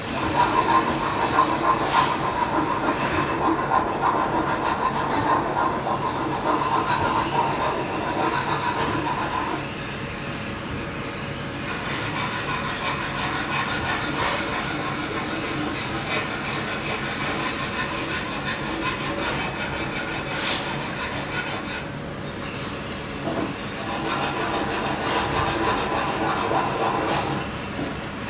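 Robotic laser welding cell at work: a steady hiss and crackle with machine hum, and a sharp click about two seconds in and another about twenty seconds in.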